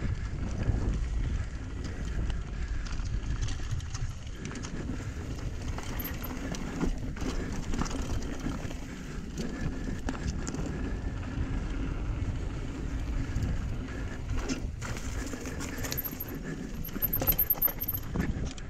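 Mountain bike riding down a dry, rocky dirt trail: tyres rolling over dirt and loose stones, with frequent clicks and knocks from the bike and a low wind rumble on the microphone.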